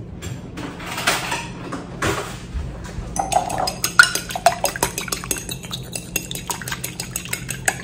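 A metal fork beating a raw egg in a glass bowl: quick, rapid clinking of the fork against the glass that starts about three seconds in, after a couple of brief clatters.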